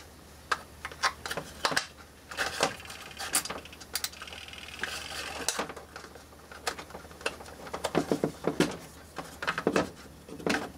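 Small plastic and metal parts of a mechanical wind-up timer clicking, knocking and rattling as they are handled and fitted back together, in irregular bursts with a busier rattling stretch about two to six seconds in.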